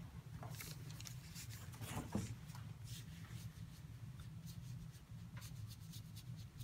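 Faint, scattered paper rustles and light scratches while painting on rice paper with a brush and a crumpled tissue in hand, over a low steady hum. The loudest rustle comes about two seconds in.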